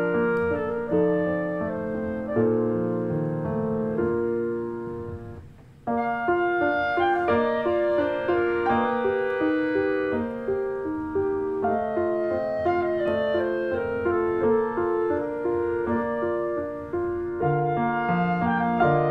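Background instrumental music with piano. It fades almost out about five seconds in and starts again abruptly about six seconds in.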